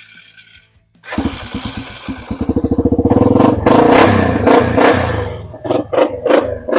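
Yamaha Grizzly ATV engine cranking on the starter with rapid even pulses, catching about three seconds in and running, with the throttle blipped so it rises and dips near the end. It runs now that its carburetor has been cleaned of a jelly-like residue from gasket maker that had kept fuel from getting through.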